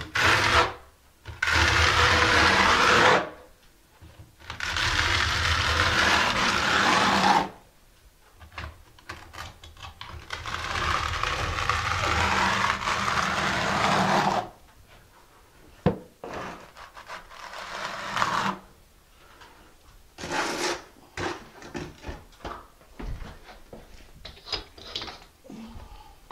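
Steel notched trowel scraping across thinset mortar on a cement-board ceiling, spreading and combing it into ridges in several long strokes of a few seconds each. In the last ten seconds, scattered light clicks and taps.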